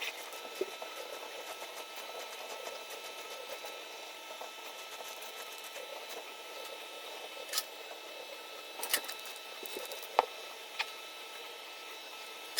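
A steady faint hum of a small machine with thin whining tones, and a few sharp clicks and taps in the second half.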